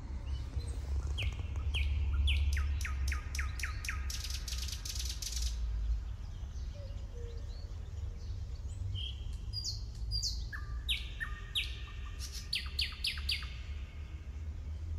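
Small songbirds singing in runs of quick repeated chirps, one run in the first few seconds and another from about nine seconds in, over a low steady rumble.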